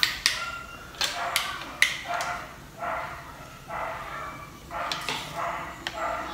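Sharp clicks from the switch of a handheld rechargeable spotlight being pressed as its beam is switched on. A string of short repeated calls, about one a second, runs in the background.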